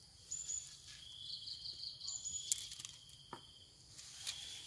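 Insects trilling in a steady, high-pitched chorus, with short, higher-pitched chirps over it and a few faint clicks.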